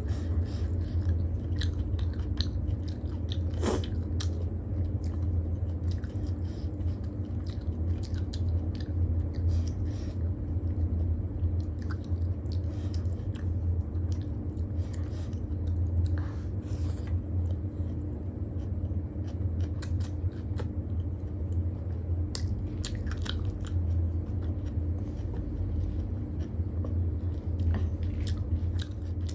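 Close-miked chewing and mouth sounds of someone eating chow mein noodles by hand, with many short wet clicks scattered throughout, over a steady low hum.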